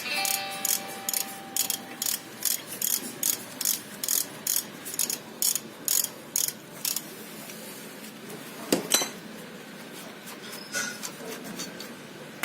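Socket ratchet clicking in quick repeated backstrokes as a 12 mm brake caliper bolt is worked, about two or three bursts a second, stopping about seven seconds in. A single sharp knock near nine seconds, then a few faint clicks.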